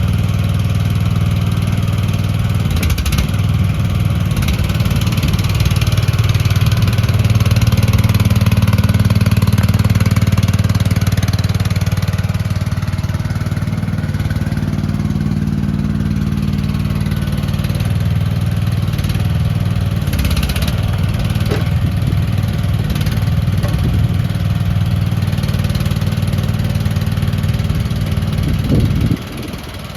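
The engine of an AGT QK18RKS-C mini excavator runs steadily, swelling louder for a few seconds in the first half as it is worked, then falls away sharply near the end.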